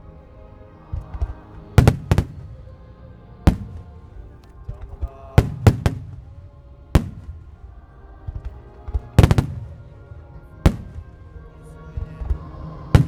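Aerial firework shells bursting: about ten sharp bangs at uneven intervals, some in quick pairs, with music playing underneath.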